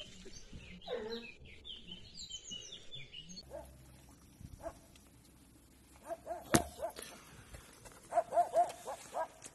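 Dog whimpering in short, high, repeated cries, several a second over the last few seconds, with one sharp click about two-thirds of the way in. Birds chirp during the first few seconds.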